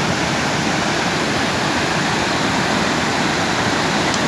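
Fast-flowing river current rushing, a steady loud wash of water.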